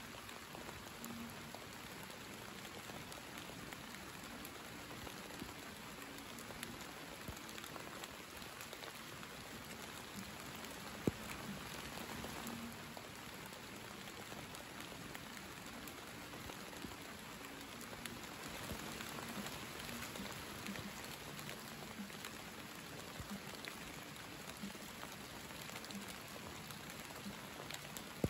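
Faint, steady rain falling, an even patter with no break, and one sharp click about eleven seconds in.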